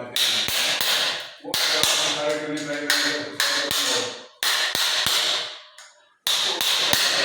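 Irregular sharp taps with a short ringing tail: a tool tapping on a floor drain grate and the tile around it while the fitting is set in cement. The taps come in clusters, with a brief quiet spell near the end.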